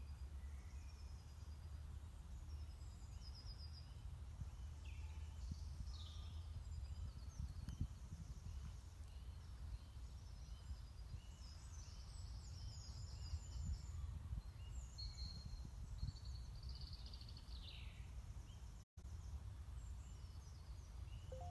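Several woodland birds calling and singing, a run of short repeated chirps and falling whistled sweeps, over a steady low rumble. The sound cuts out for a moment near the end.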